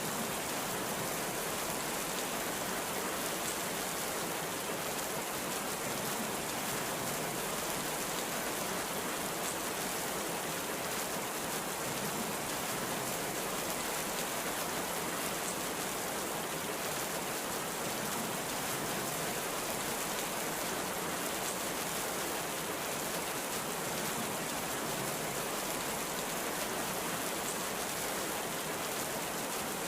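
Heavy rain falling steadily, an even unbroken hiss with no thunder in this stretch.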